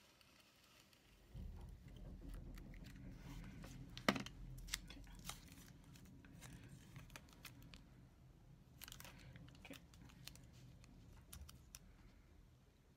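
Hands handling a paper planner and sticker sheets: faint paper crinkling and rustling with scattered small clicks, the sharpest about four seconds in, over a low rumble.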